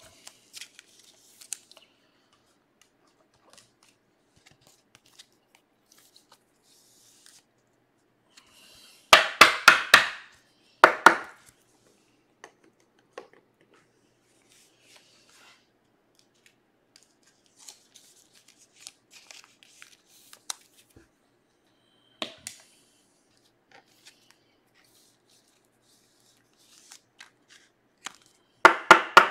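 Trading cards being handled and flipped through by hand: soft rustles, slides and light clicks of chrome cards against one another, over a faint steady hum. Short loud bursts stand out about nine and eleven seconds in, and again right at the end.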